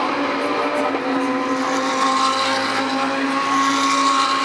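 GT3 race car engine held at high revs, its pitch steady throughout.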